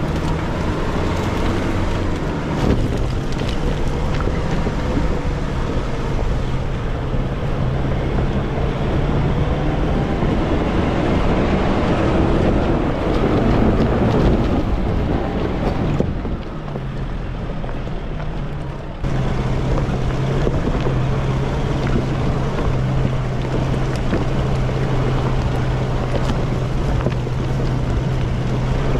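Nissan Pathfinder R51 driving off-road over a rocky track. The engine runs at a steady low pitch under rough tyre noise on stones, with wind on the microphone. The sound changes abruptly about sixteen and nineteen seconds in.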